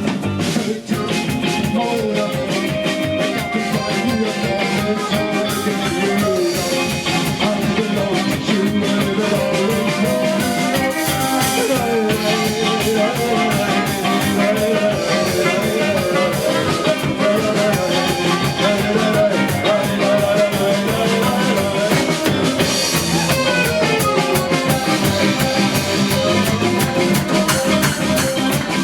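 Live band playing an instrumental passage: drum kit and guitar over a steady beat, without singing.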